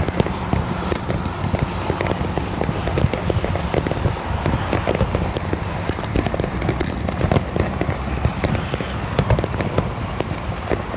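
Fireworks and firecrackers going off in a dense, unbroken crackle of sharp pops, many a second, with no single standout bang.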